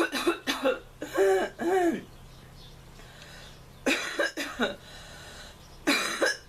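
A girl coughing in three bouts, the first near the start, one about 4 s in and one near the end. Her sore throat from a cold makes the coughs sound almost croupy.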